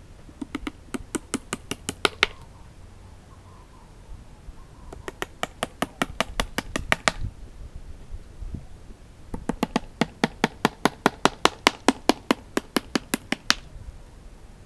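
Hammer driving nails into the top of a larch-log nest box: three runs of quick, sharp strikes, each speeding up as the nail goes home, the last and longest at about five strikes a second.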